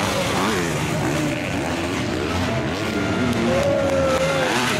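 Motocross bike engines revving hard, their pitch repeatedly rising and falling as the throttle is worked over the jumps, with one engine holding a higher, steady pitch about three and a half seconds in.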